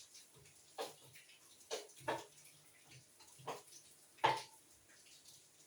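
Kitchen handling sounds: about five short, wet-sounding clicks and knocks spread a second or so apart, the loudest about four seconds in, as the seasoned chicken is handled and set aside to marinate.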